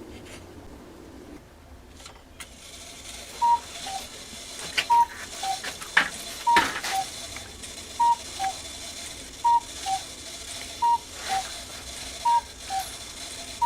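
Cuckoo clock calling: its bellows-blown pipes sound "cuck-oo", a higher note then a lower one, about eight times at roughly a second and a half apart, starting a few seconds in. Underneath runs the clicking and whirring of the clock's strike mechanism, which is working again after repair.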